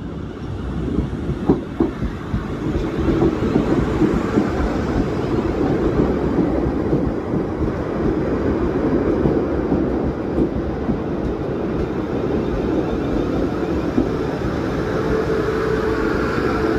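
South Western Railway electric multiple-unit train running past close by along the platform: a steady rumble of wheels on the rails that builds over the first few seconds as it draws near, with a steady hum joining near the end as the rear cars pass.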